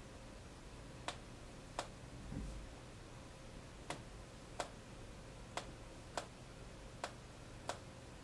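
Sharp mouse-button clicks, eight in all, coming in pairs about two-thirds of a second apart, with a soft low thump a little after two seconds.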